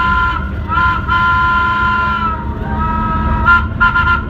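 A two-tone horn sounding a long blast, a pause, a shorter blast, then a quick run of short toots near the end, over a steady low rumble.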